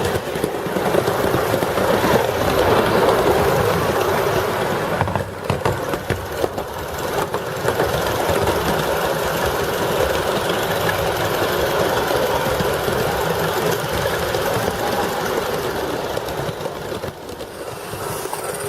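Live steam model locomotive running, a steady hissing, rattling mechanical noise that dips briefly about five seconds in and again near the end.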